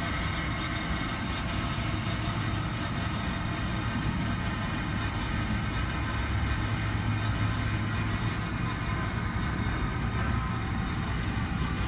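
Air-conditioner outdoor condensing unit running: a steady hum from the rotary compressor with even fan and airflow noise, unchanged throughout.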